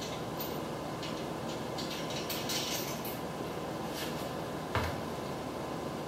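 Light metallic clinks and rattles of bolts and steel tubing being handled while a steel hitch cargo carrier is put together, with one sharper knock a little before the end, over a steady background hiss.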